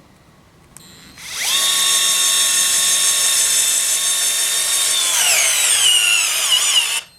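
Small cordless screwdriver's motor and gearbox whining as it drives a 1/4-inch Tapcon hex-head screw into a wooden 2x12. It starts about a second in and runs at a steady pitch; about five seconds in the pitch sinks and wavers as the motor slows under the load of the screw, then it stops suddenly near the end.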